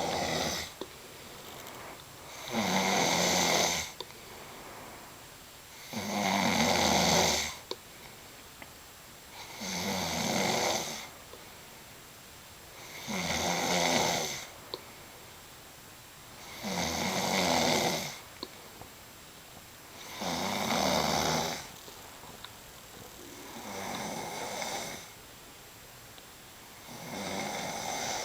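A sleeping man snoring in a steady rhythm, one snore about every three and a half seconds, each lasting about a second and a half, with quieter breathing between.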